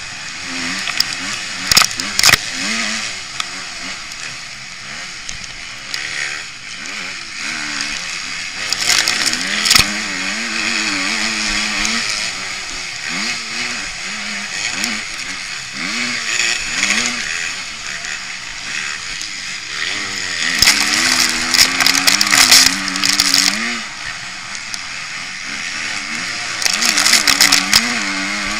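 Motocross bike engine revving up and down as the rider works the throttle around the track, heard close up from an onboard camera, with a steady rush of wind noise and several sharp knocks.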